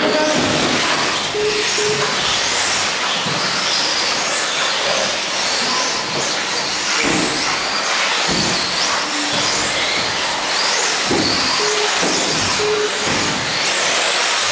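Several radio-controlled off-road cars racing on a carpet track, their motors whining high and gliding up and down in pitch as they speed up and brake. Short beeps sound now and then, twice near the start and twice near the end.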